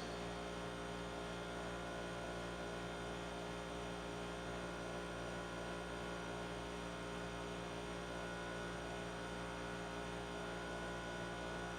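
Steady electrical mains hum with a stack of harmonics, an unchanging buzz with nothing else over it.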